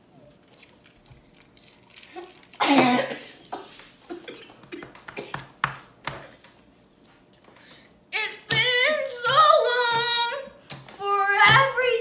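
A child singing, with held and sliding notes starting about 8 seconds in. Before that, a short loud vocal outburst comes about 3 seconds in, followed by scattered taps.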